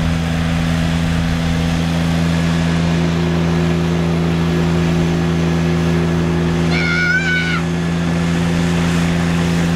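Argo Centaur amphibious vehicle's engine running at a steady, unchanging drone as it drives through the water. About seven seconds in there is a brief high-pitched call.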